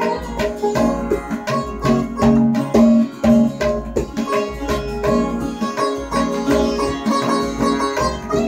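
Sitar playing a melody in quick plucked notes, with tabla drumming and an acoustic guitar strummed underneath.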